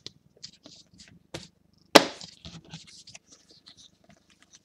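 A stack of trading cards being handled and flicked through: small clicks and slides of card on card, with one sharp knock about two seconds in.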